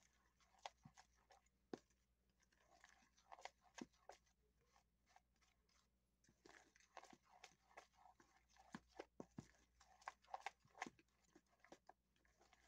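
Faint, irregular scraping and crunching of a utensil stirring a stiff, crumbly powdered-sugar mixture in a plastic mixing bowl.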